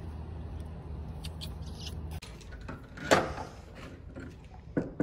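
A steady low hum that stops abruptly a little over two seconds in, then one loud knock about three seconds in, followed by a few lighter clicks and handling noises.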